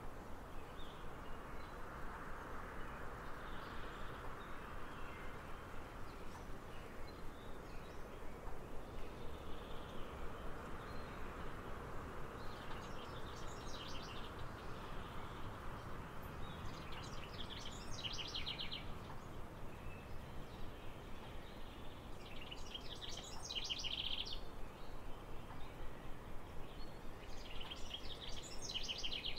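Outdoor ambience: a steady background hiss, with a songbird singing short trilled phrases about every four to five seconds through the second half.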